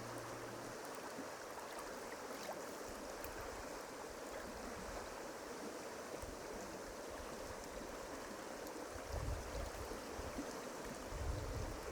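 Flowing river water, a steady rush, with two brief low rumbles near the end.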